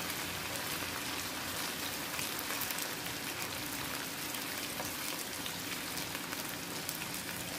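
Marinated chicken pieces sizzling steadily in hot oil in a wok as they fry on their second side, a constant fine crackle.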